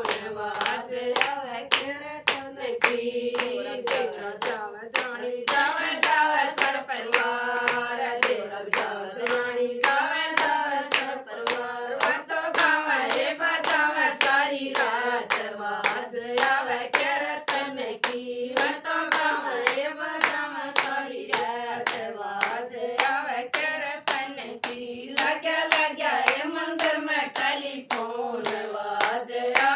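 Haryanvi bhajan sung kirtan-style, with a steady hand-clapped beat of several claps a second under the melody.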